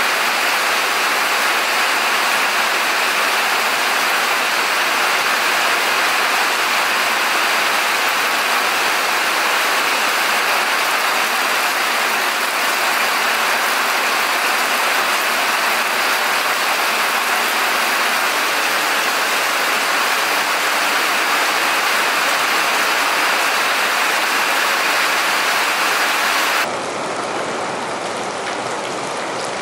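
Steady rain falling, an even hiss that drops in level and turns duller near the end.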